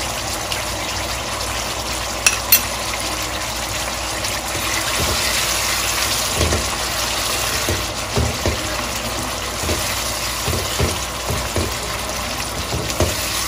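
Thick onion, yogurt and tomato masala sizzling steadily in oil in a pan, being fried down until the oil separates, while a silicone spatula stirs it with short soft knocks against the pan from about halfway through. Two sharp clicks about two seconds in.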